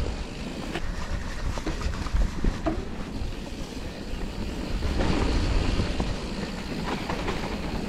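Mountain bike rolling down a dirt forest trail: a steady rumble of tyres on dirt and wind on the microphone, with a few light clicks and knocks from the bike over the bumps.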